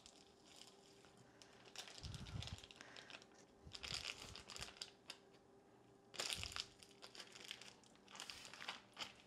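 Faint, intermittent crinkling and rustling of meat packaging being handled, in several short bouts, with a couple of soft low bumps.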